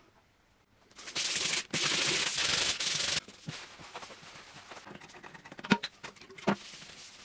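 Cloth rubbing and wiping across a bare aluminium plate. A harsh, steady rubbing comes in three stretches from about one to three seconds in, then softer wiping follows. Near the end there are two sharp knocks as a tin can is set down on the metal.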